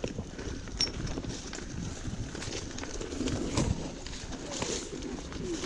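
Mountain bike riding fast down a rough dirt singletrack: tyres on dirt and loose stones, with the bike rattling and knocking over bumps and wind rumbling on the microphone.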